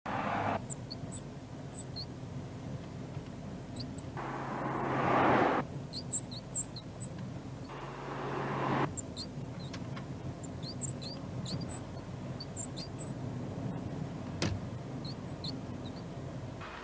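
Short, high-pitched squeaks and chirps coming irregularly from somewhere in a moving car: the abnormal noise being recorded. They sit over a steady low hum of engine and road noise, which swells louder twice, and there is a single sharp click near the end.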